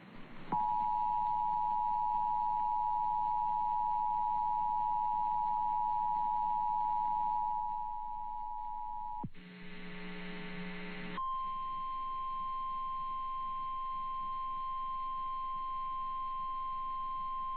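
Emergency Alert System attention signal: two steady tones sounding together for about nine seconds. A brief harsh buzz follows, and then a single steady tone, the NOAA Weather Radio warning alarm that comes ahead of the National Weather Service voice warning.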